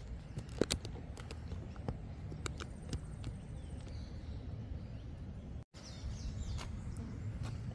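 Outdoor ambience with a steady low rumble, a few sharp clicks in the first three seconds, a brief dropout about two thirds of the way in, then a few faint bird chirps.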